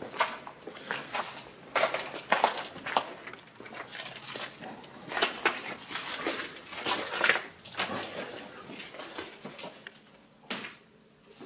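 Footsteps on a littered floor: irregular crunches and scuffs, several a second, thinning out near the end.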